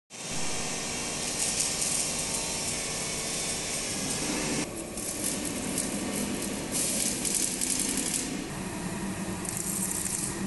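CNC plasma cutting and drilling machine running: a steady hiss of air over a low mechanical hum, with the hiss coming and going several times.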